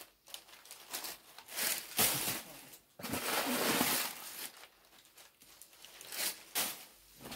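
Crumpled paper stuffing rustling and crinkling in several irregular bursts as it is pulled out of a new tote bag by hand.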